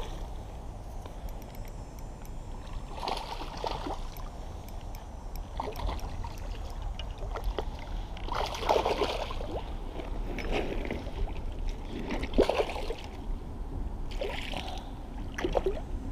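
Water splashing and sloshing in short, irregular bursts as a hooked smallmouth bass thrashes at the surface in the shallows, over a steady low rumble.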